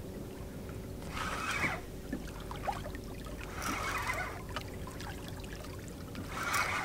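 Small waves lapping and sloshing against the hull of a small boat, a wash about every two and a half seconds.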